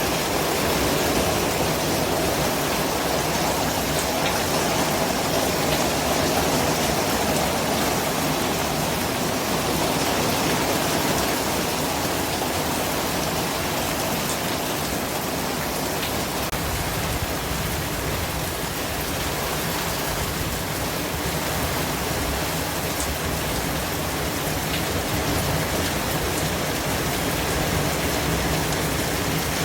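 Steady white-noise track: an even hiss across all pitches, with a few faint ticks now and then.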